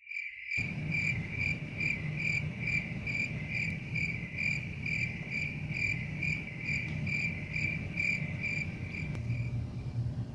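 Cricket chirping: a steady high pulsing, about three pulses a second, that fades out near the end, over a low room hum.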